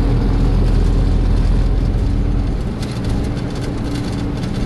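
A motor vehicle's engine running steadily: a deep rumble with a steady low drone, and some faint crackle and buffeting over it from about three seconds in.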